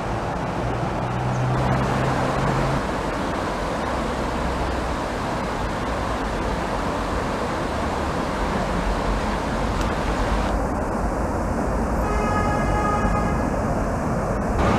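Trams and street traffic passing along a riverside road: a steady rush of vehicle and rail noise, with a low hum in the first few seconds and a faint pitched tone near the end.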